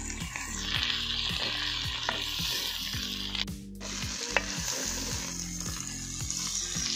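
Chopped flat beans sizzling in an unglazed clay pot over a wood fire while a wooden spatula stirs and scrapes them. There is a brief break a little past the middle, then a single sharp tap. Low background music plays underneath.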